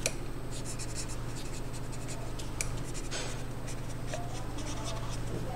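Felt-tip sketch pen writing on a paper sheet: short irregular scratchy strokes, over a steady low hum.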